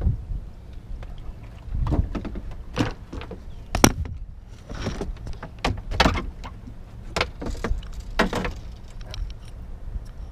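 Irregular knocks, clicks and handling noises in a fishing boat, the sharpest knock about four seconds in, over a steady low rumble.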